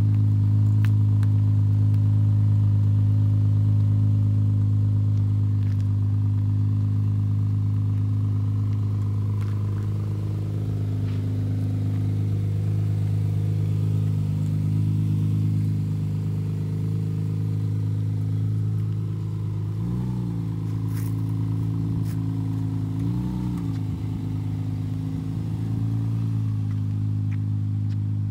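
V6 engine of an Infiniti G35-based Vaydor kit car running at a steady idle, with two brief small rises in engine speed about two-thirds of the way through.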